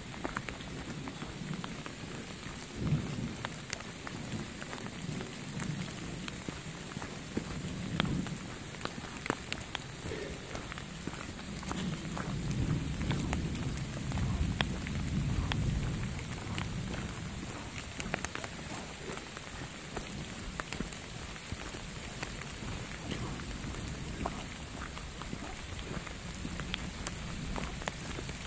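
Steady rain with drops pattering. A low rumble of thunder swells and fades between about twelve and sixteen seconds in.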